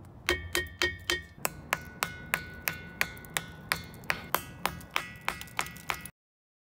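Ringing rocks (lithophonic stone) struck repeatedly with a hand-held stone, about three sharp strikes a second, each leaving a bell-like ringing tone. The strikes cut off abruptly about six seconds in.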